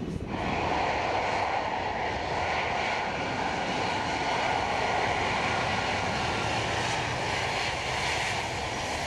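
Jet engines of an Airbus A330-300 running at high power as the airliner rolls fast along a wet runway: a steady, loud rushing noise that starts abruptly a moment in.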